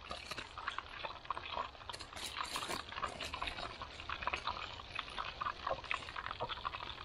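Floured food pieces dropped into hot oil in a small camp-stove pot, sizzling and crackling as they deep-fry. There is a dense patter of pops, busiest a couple of seconds in, over a low rumble of wind.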